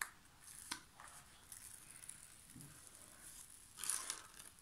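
Diamond painting canvas and its paper cover sheet rustling as they are handled and unfolded, with two light taps near the start and a louder rustle near the end.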